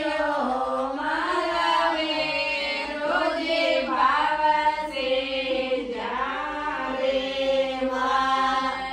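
A group of women's voices singing a traditional devotional folk song for the family's ancestors together, in a continuous chant-like melody with sliding, held notes.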